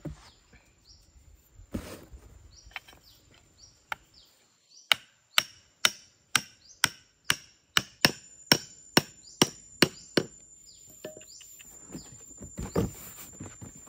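Hammer striking the top of a bamboo stake to drive it into the ground: about a dozen sharp, even blows, two a second, starting about five seconds in, then a few softer knocks near the end.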